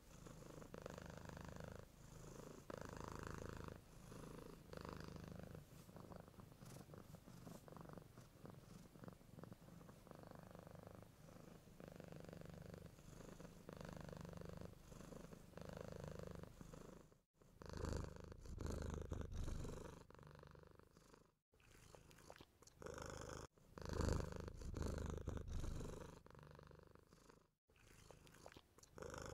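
Domestic cat purring close up, in pulses that swell and fade with each breath. The sound drops out briefly three times and comes back louder after the first break.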